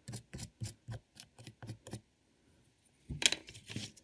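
A digging tool scraping and chipping at the plaster block of an excavation kit: quick short strokes about four a second, a brief pause, then two louder scrapes near the end.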